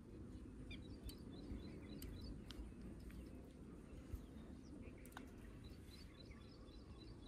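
Faint outdoor ambience: a low steady background rumble with a small bird chirping in two short runs of quick high notes, one starting about a second in and another around six seconds, and a few faint clicks.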